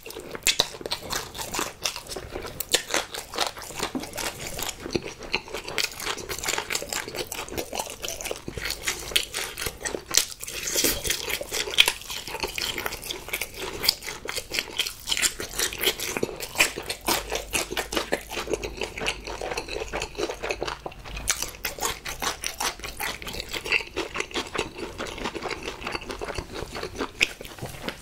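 Close-miked eating of sauce-coated spicy fried chicken: a continuous run of biting and chewing sounds, many small clicks and smacks a second.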